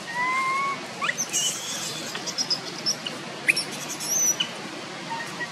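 Young macaque crying: a rising whimpering coo in the first second, then a string of high-pitched squeals and short, sharp screeches. These are distress cries of a youngster whose mother no longer lets it nurse.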